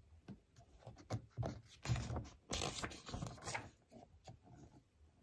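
Paper rustling as a book page is turned and smoothed flat by hand: a few soft taps and clicks, then a louder sweep of rustling about two seconds in that lasts over a second.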